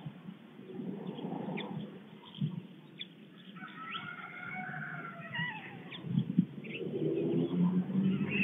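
Small songbirds sing in the background at a white stork nest. From about seven seconds in, low repeated calls come from the stork chicks.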